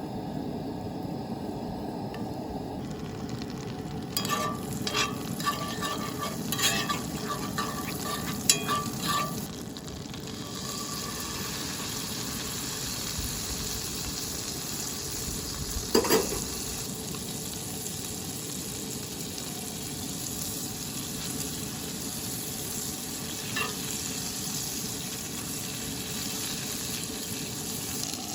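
Bacon-wrapped filet mignon frying in butter and garlic in a pan, sizzling steadily. A run of small metal clinks and scrapes comes a few seconds in, and one sharp metallic knock comes about halfway through.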